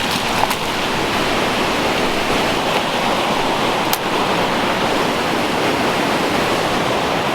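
Waterfall rushing loud and steady, a dense roar of falling water up close, loud enough to drown out a voice. There is a brief click about four seconds in.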